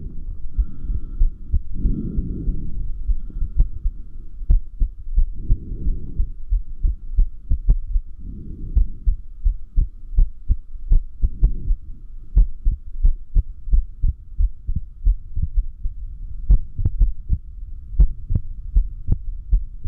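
A person's heartbeat, a long run of short beats at somewhat uneven spacing. The uploader finds the arrhythmia clearly worse while holding the breath. A few low rushing sounds come in the first half, then only the beats.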